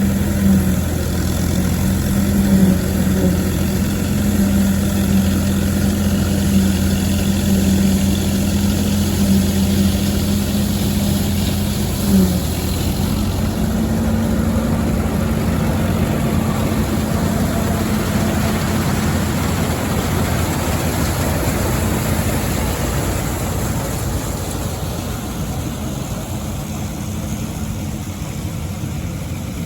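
Allis-Chalmers WD45 tractor engine running steadily with an All-Crop 72 pull-type combine working behind it, a constant engine drone over the rush and rattle of the machine. A brief knock partway through, after which the engine note sits slightly higher.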